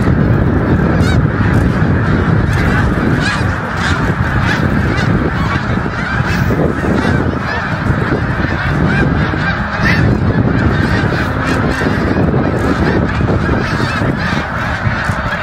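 A large flock of snow geese calling, a dense unbroken din of many overlapping honks.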